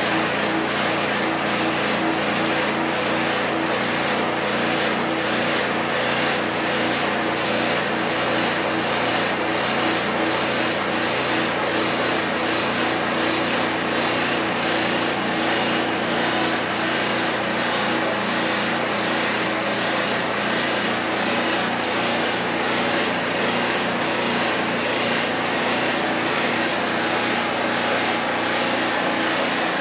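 Hi Sifter tumbler screener running steadily while screening graphite powder: a continuous mechanical hum with a steady low tone over a broad hiss, with a faint regular pulse in the hiss.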